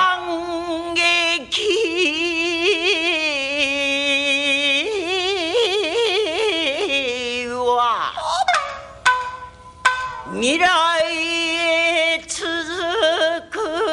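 A woman singing rōkyoku (naniwa-bushi) fushi: long-held melismatic notes with wide vibrato, sliding between pitches, with shamisen accompaniment. The line breaks off briefly twice, about 8 and 10 seconds in.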